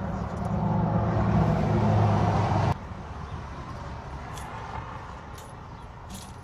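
A vehicle engine running steadily and growing louder, then cut off abruptly a little under three seconds in, leaving a quieter background with a few light clicks.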